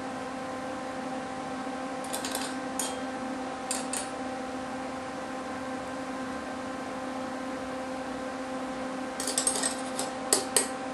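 Wire cutters snipping burrs and weld spatter off a small welded steel-rod figure: sharp metallic clicks, a few about two to four seconds in and a quick run of them near the end, over a steady hum.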